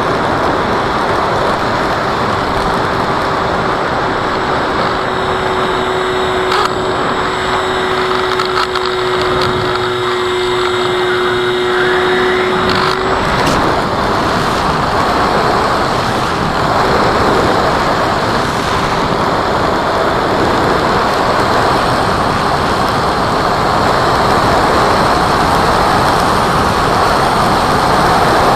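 Radio-controlled FMS Cessna model airplane in flight: a steady rushing noise, with a steady tone from its motor and propeller that stops about thirteen seconds in.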